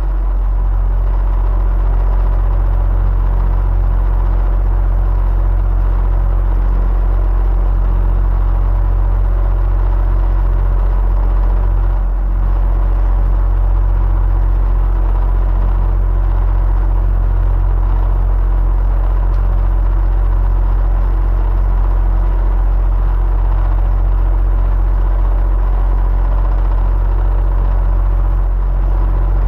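Electric fan running steadily: an even, deep whoosh with a faint steady hum in it, dipping for a moment about twelve seconds in.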